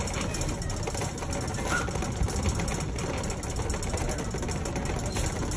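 Plastic shopping cart being pushed across a hard store floor, its wheels and frame rattling steadily.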